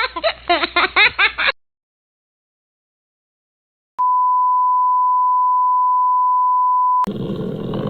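A steady electronic beep, one pure tone held for about three seconds, starting about four seconds in after a stretch of dead silence and cutting off abruptly. A high-pitched voice is heard at the start, and noisy room sound cuts in as the tone ends.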